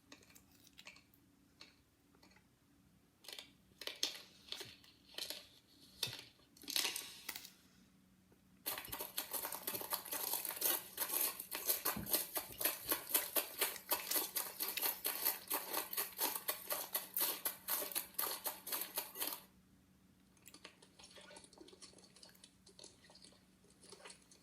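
Crinkling, crackling handling noises: a few separate bursts, then about ten seconds of dense, rapid crackling that stops suddenly, then fainter crackling near the end.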